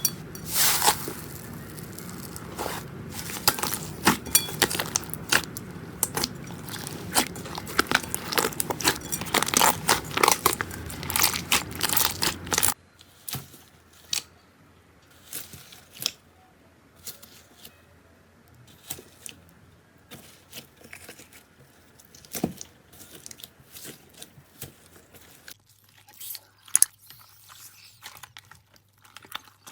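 Slime being squeezed and worked, with dense crackling and popping for about the first 13 seconds. It then cuts abruptly to quieter, scattered pops and clicks.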